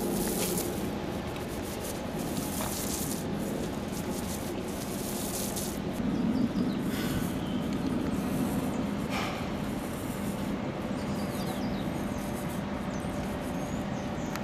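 Paint roller on an extension pole rolling paint over the steel side of a freight car, making repeated rubbing strokes over a steady low hum.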